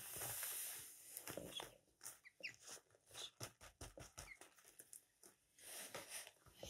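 Ducklings pecking crushed corn off newspaper, a faint patter of small clicks, with a few short high peeps. There is rustling of the paper at the start and again about six seconds in.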